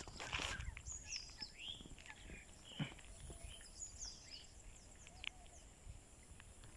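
Wild birds calling: repeated short whistled notes that fall steeply in pitch, mixed with brief chirps, over a faint steady high tone. A brief rustle about half a second in.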